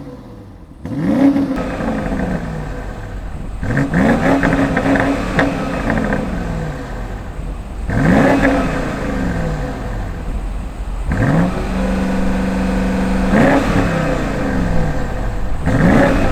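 BMW X7 M50i's twin-turbo 4.4-litre V8 with quad exhaust revved about five times, each rev rising sharply. Two of the revs are held high for a second or two before the engine falls back to idle.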